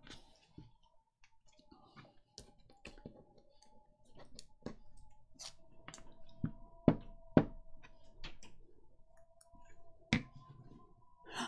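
Scattered light taps, clicks and knocks of hands handling paper and craft tools on a worktable, the sharpest a pair of knocks about seven seconds in, over a faint steady whine.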